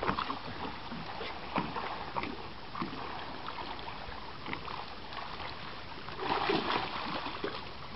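Water splashing as a large fish thrashes in the shallows while being hauled ashore on a rope, with a louder burst of splashing about six seconds in.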